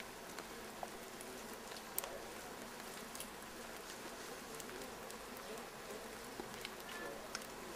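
Light rain pattering: a faint steady hiss with scattered sharp ticks of drops landing close by.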